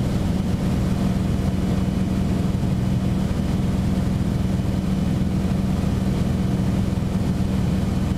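Beechcraft Bonanza's piston engine and propeller droning steadily in flight, heard inside the cockpit: an even low drone with a strong steady hum.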